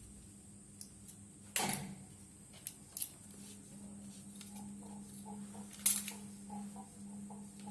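A few sharp clicks and knocks, the loudest about six seconds in, over a steady low hum.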